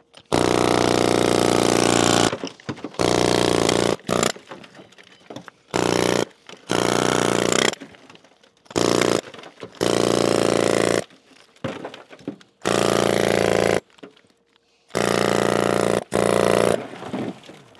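Pneumatic hammer chiselling into a large conglomerate rock, run in about ten short bursts of one to two seconds each that start and stop abruptly.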